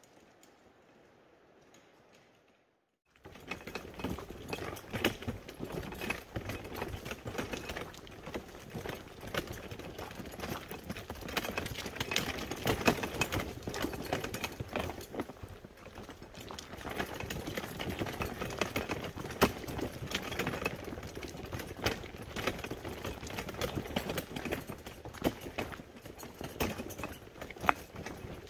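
Footsteps crunching along a hiking trail, a dense run of irregular crackles and scuffs, starting suddenly about three seconds in after a faint, steady hush.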